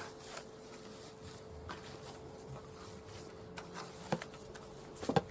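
Faint, steady insect buzz, like a fly hovering, with a few short wet squelches of hands kneading minced meat about four and five seconds in.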